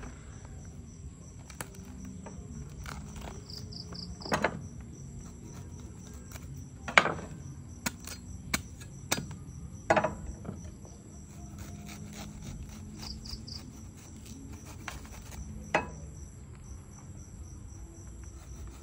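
Sharp cracks and knocks as a durian's spiky husk is pried apart into segments and handled on a wooden board, about seven separate strokes, over steady high-pitched insect chirping.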